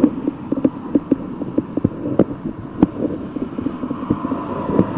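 Bicycle ride noise: the bike and its handlebar fittings rattle and knock over the road surface, with irregular knocks several times a second over a steady rumble.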